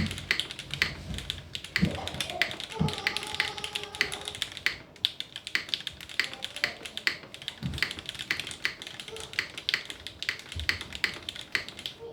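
Rapid, steady typing on a Tiger TKL mechanical keyboard with an aluminium top-mount plate, linear Cherry vintage black switches and GMK doubleshot keycaps: a dense run of keystroke clacks with a deeper thud every few seconds.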